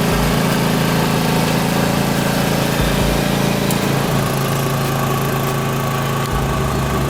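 Mitsubishi LV4 rice transplanter's small engine running steadily as it plants rice. Its low hum shifts about six seconds in.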